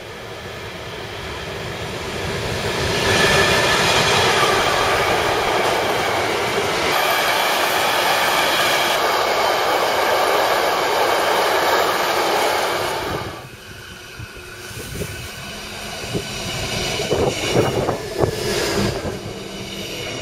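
Container freight train passing at speed: the rumble of wheels on rail builds as it approaches, then holds as a loud steady rush with a ringing note as the wagons roll by. About two-thirds of the way through it drops off suddenly to quieter rail noise with scattered clicks and knocks, which swells again near the end.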